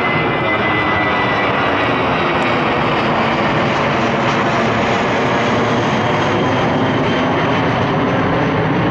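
Airbus A320 airliner's twin jet engines at climb power as it passes overhead just after takeoff: a loud, steady roar, with a thin high whine that fades out about two seconds in.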